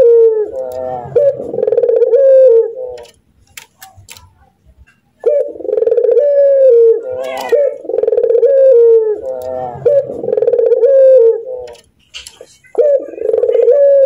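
Barbary dove (ringneck dove) giving its rolling, laughing coo in repeated bouts, with a pause of about two seconds a few seconds in and a short break near the end.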